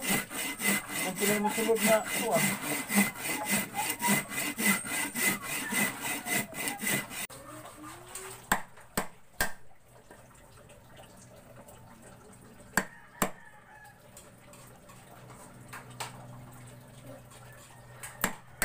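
Hand saw cutting through a wooden block in quick, even back-and-forth strokes for about the first seven seconds. Then, much quieter, a chisel is worked into a notch in a wooden plank, giving a few scattered sharp knocks.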